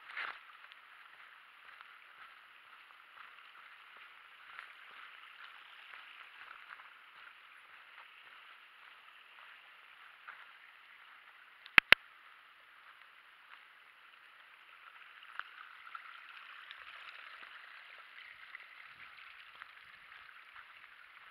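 Muffled steady hiss and rustle with faint irregular footfalls from a hiker walking a dirt trail with a body-worn camera. About halfway through come two sharp clicks close together, the loudest sounds.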